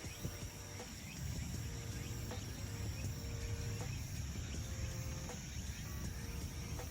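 Insects, probably crickets, keep up a steady high-pitched trill, over a low rumble of wind on the microphone.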